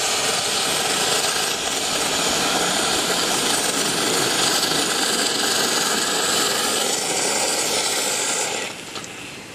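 A 7.5-inch-gauge 2-6-0 live steam locomotive, standing still, letting off steam in a loud, steady hiss that starts abruptly and cuts off sharply about a second before the end.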